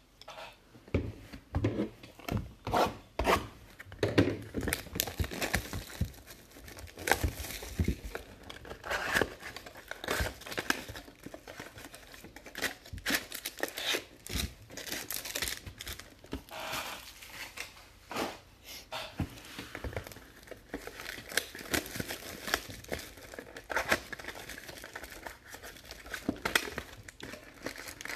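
A cardboard trading-card hobby box being opened and its baseball card packs handled and torn open: irregular crinkling, rustling and tearing of the shiny pack wrappers and cardboard flaps, with many sharp crackles.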